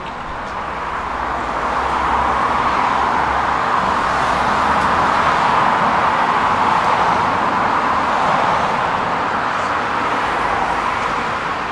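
Road traffic passing on a multi-lane street: car tyre and engine noise that swells about two seconds in, stays steady, and eases slightly near the end.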